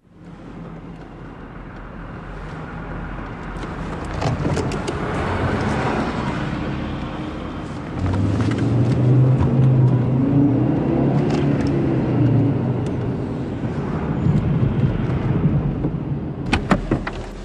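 A car's engine running while the car drives, steady at first and then louder, with its low note stepping up about eight seconds in. A few sharp clicks come near the end.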